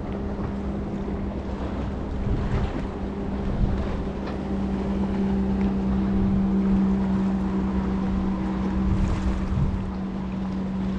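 Wind buffeting the microphone over a steady low hum, with a few faint irregular knocks.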